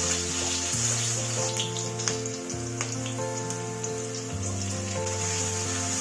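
Oil sizzling in a wok with garlic and chilli frying, a steady hiss with scattered crackling pops, under background music with a slow bass line that changes note every couple of seconds.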